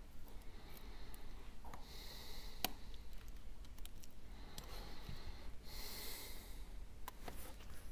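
A person breathing out through the nose close to the microphone, twice, with a few sharp light clicks and taps of tools on the iPhone's internal parts, the loudest about two and a half seconds in, over a steady low hum.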